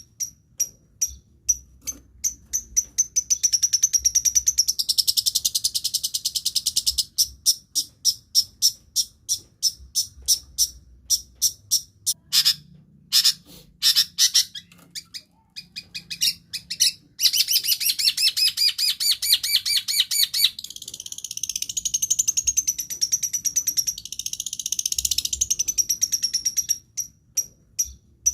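Long-tailed shrike (cendet) singing: a rapid run of sharp, high repeated chips, broken twice by long, fast, buzzy trills.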